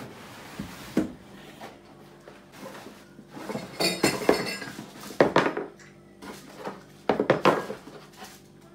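Unpacking a coffee machine: the moulded pulp packaging insert scrapes and knocks against the cardboard box, and the machine's metal accessories clatter and clink in several short bursts, about four, five and seven seconds in.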